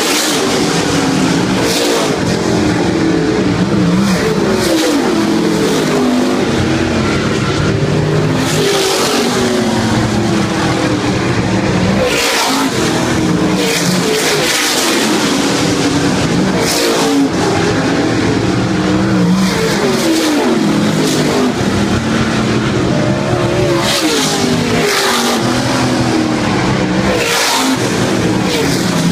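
Several dirt-track race car engines running hard as they lap the oval, their pitch rising and falling through the turns, with a louder rush each time a car passes close.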